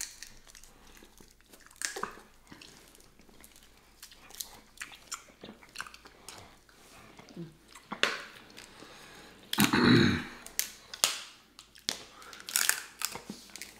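Snow crab leg shells cracking and snapping as they are broken open by hand, with close-up chewing of the crab meat. Sharp cracks come irregularly throughout, with one louder, longer muffled sound about ten seconds in.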